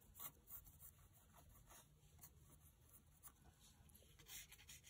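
Faint pencil scratching on paper, in short irregular strokes, as the pencil traces around the edge of a cut-paper letter stencil.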